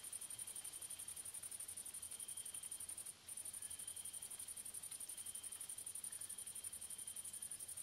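Grasshoppers stridulating at dusk: a continuous, rapidly pulsing high-pitched buzz that breaks off briefly a little over three seconds in. A fainter, lower chirp repeats about every second and a half.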